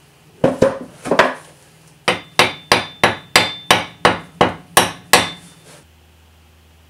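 A hammer driving a wooden wedge into the top of a new axe handle, seated in the eye of an old felling axe head: a few uneven blows, then a steady run of about ten strikes, roughly three a second, that then stop.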